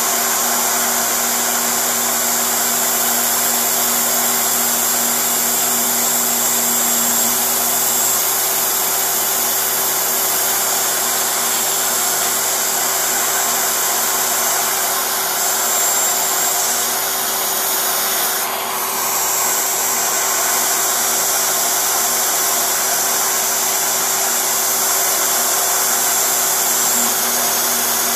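CNC router spindle running at high speed, its end mill cutting a pocket in a clear plastic block, together with the steady rush of a vacuum hose drawing off the chips. The steady whine dips briefly about two-thirds of the way through.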